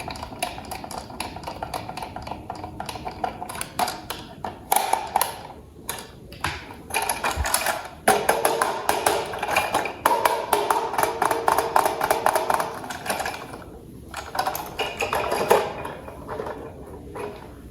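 Plastic toy parts and packaging handled close to the microphone: dense, rapid clicking and rattling that comes and goes in louder stretches.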